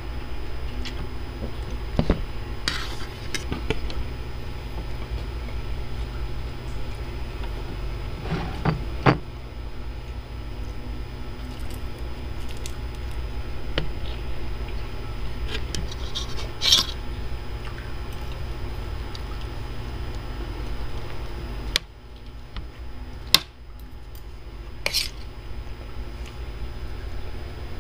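Spoon and fork clinking and scraping against ceramic plates, with chewing sounds, over a steady low hum that drops away about three quarters of the way through.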